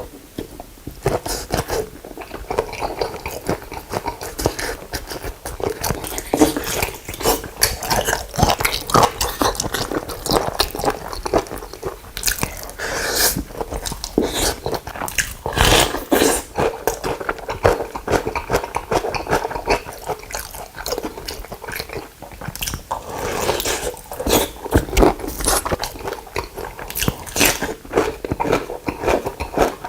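Close-miked eating of soy-sauce marinated raw shrimp: continuous wet chewing, biting and smacking with irregular crackly crunches, busiest around the middle and again near the end.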